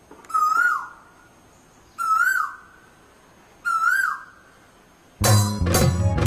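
A bird call sounds three times, evenly spaced, each call rising then falling in pitch. About five seconds in, Assamese Bihu folk music starts with drum beats.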